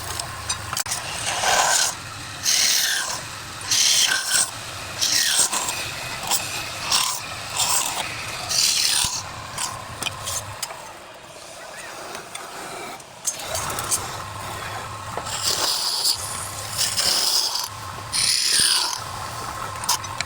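A wood lathe running while a turning tool cuts the spinning wood, making short scraping bursts every second or two, with a quieter stretch about halfway through.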